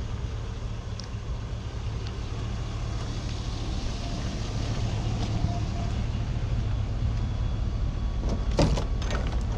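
Truck engine and road noise, a steady low hum heard from inside the cab while driving, with a few short sharp knocks near the end.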